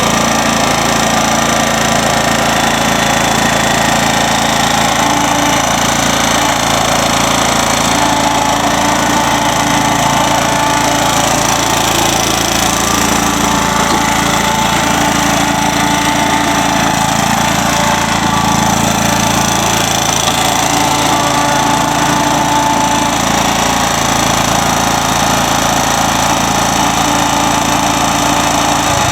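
Kohler 14-horsepower engine of a walk-behind commercial lawnmower running steadily at a constant level, its tone shifting a little in the middle as the mower is driven forward and backward.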